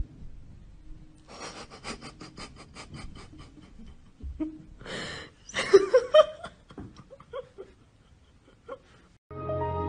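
Quick rhythmic breathy panting, several breaths a second. About five seconds in comes a louder breathy gasp, then a short laugh-like sound rising in pitch, before it fades.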